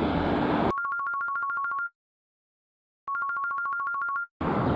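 Electronic telephone ring: a fast warble between two high notes, sounding twice for about a second each with a silent pause between. Street noise cuts off under a second in and returns near the end.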